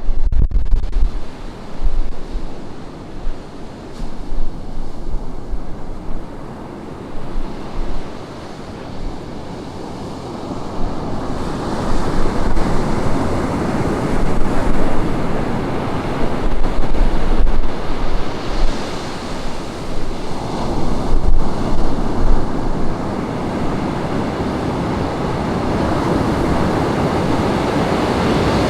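Ocean surf breaking and washing up the beach, with wind gusting on the microphone as a low rumble through the first several seconds. The wash of the waves grows louder about a third of the way in and swells again near the end.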